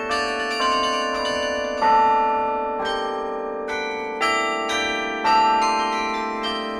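Carillon bells played from the baton keyboard: a slow melody of single struck notes, each ringing on and overlapping the next over the lower bells still sounding.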